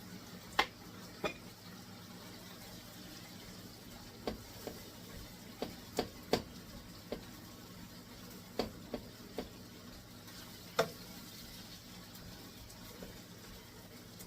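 Ground beef frying in a skillet, a steady low sizzle, with about a dozen sharp, irregular clicks and taps scattered over it.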